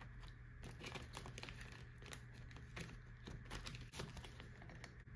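Faint crinkling and rustling of clear plastic binder pockets and challenge cards being handled and flipped, with many irregular small clicks.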